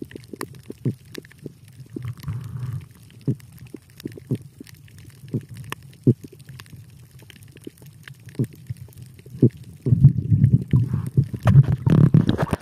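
Underwater recording: scattered sharp clicks and knocks over a low, bubbly rumble of moving water, the rumble turning much louder and busier about ten seconds in.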